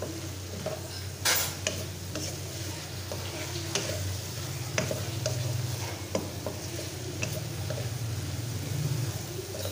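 Spatula scraping and knocking against a metal wok as sliced cabbage, capsicum and onion are stir-fried over high heat, with a steady sizzle beneath. The sharpest clatter comes about a second in, and the scrapes recur irregularly throughout.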